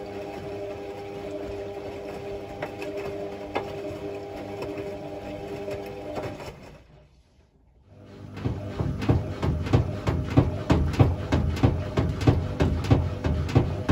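Hotpoint WMA64 front-loading washing machine in its wash tumble, with a brand-new drive motor. The motor hums steadily while the drum turns, then stops for about a second. The drum starts again with a quick run of sloshing knocks, about three a second, as the wet laundry and water fall inside it.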